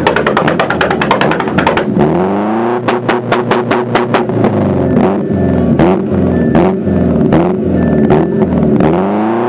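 Proton Satria hatchback's engine revved again and again through a loud exhaust, its pitch rising and falling with each blip. Sharp cracks from the exhaust come in a fast run for the first two seconds, then fall between the revs.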